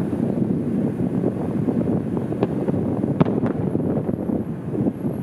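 Distant fireworks shells bursting, heard as three sharp cracks about two and a half to three and a half seconds in, the middle one the loudest, over a steady low noise that sounds like wind on the microphone.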